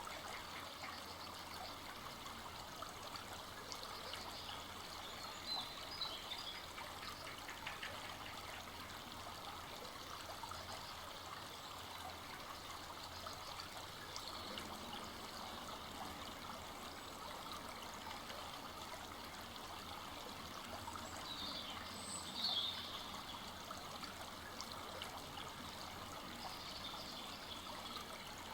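Full-flowing forest stream running and trickling steadily over its bed, with a couple of brief louder sounds about six seconds in and again about twenty-two seconds in.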